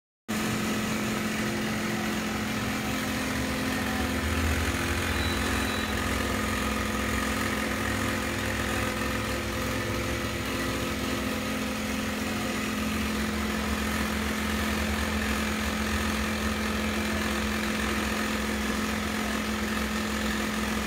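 A steady, unchanging hum from a running electric motor or fan, with a low pitched tone under a faint hiss.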